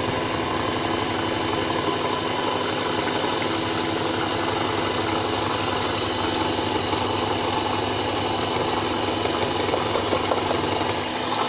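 Electric hand mixer running steadily, its beaters whisking cold-process soap batter of oils and lye solution in a bowl.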